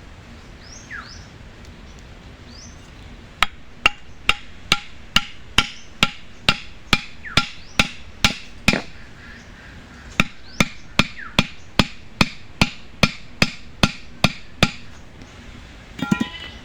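Repeated hard knocks, about two a second, in two runs with a short pause between, over faint chirping birds. Near the end comes a brief pitched call.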